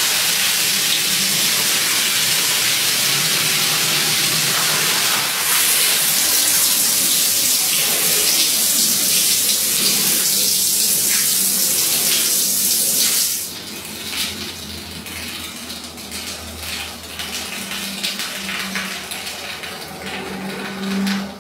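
Water from a hose splashing onto a wet rug, a steady rush of water. A little past halfway it drops to a quieter, uneven spatter as shampoo solution is sprayed onto the rug.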